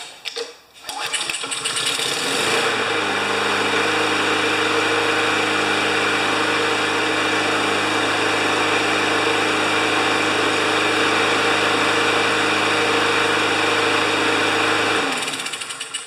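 Lawn-Boy mower's single-cylinder Honda engine started with a pull of the starter cord, catching at once and running at a steady speed. About 15 s in it stops and winds down. It starts and keeps running with a replacement carburetor fitted after a series of no-starts.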